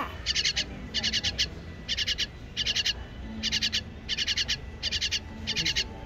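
Fledgling songbird begging for food: short runs of rapid, high chirps, repeated about every three-quarters of a second.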